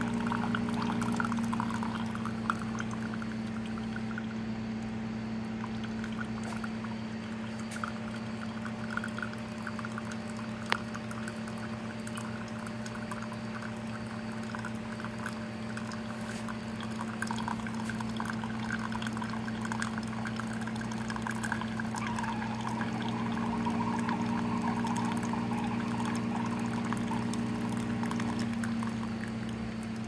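OXX Coffeeboxx single-cup coffee maker brewing: a thin stream of hot liquid pours steadily into a ceramic mug over the machine's steady pump hum. The sound drops a little near the end.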